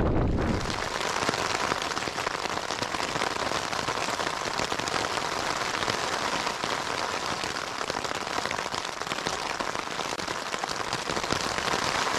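Heavy rain pattering steadily on a nylon tent fly, heard from inside the tent as a dense hiss of countless drop strikes. A low wind rumble fades out in the first moment.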